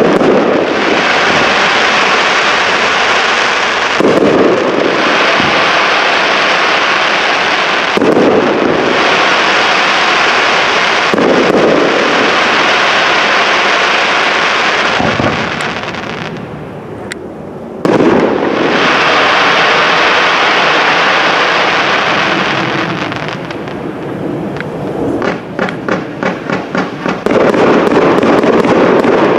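Professional fireworks display: aerial shells bursting every few seconds, each followed by a dense, steady hiss that fills the gaps between bursts. The sound dips briefly about halfway through. Near the end comes a quick string of sharp pops, then another loud swell.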